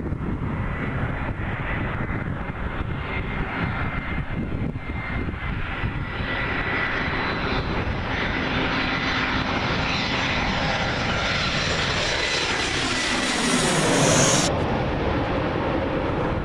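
Airbus A320 airliner on landing approach, its jet engines growing louder with a steady whine as it flies in low toward the listener. About fourteen seconds in it passes overhead at its loudest, the pitch dropping as it goes by, and the high hiss then stops abruptly.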